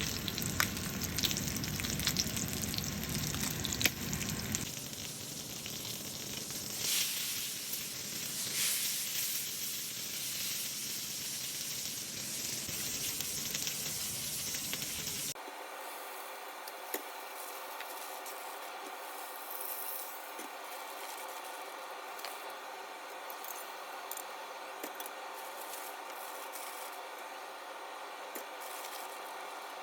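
Steak sizzling and crackling as it fries in a hot pan. About halfway through, the sound cuts abruptly to a thinner-sounding take with no low end.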